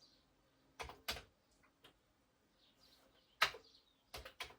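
Sharp MZ-711 computer keyboard keys pressed one at a time, a handful of separate clicks at uneven spacing, as a BASIC command is typed in.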